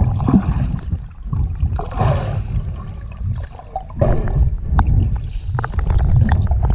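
River water gurgling and splashing around a kayak, over a heavy low rumble.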